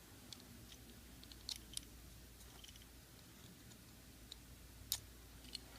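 Sparse, light clicks and taps of small plastic model-locomotive parts being handled as the tabs are spread and the frame is worked free. About half a dozen ticks come over a low room hum, the sharpest about five seconds in.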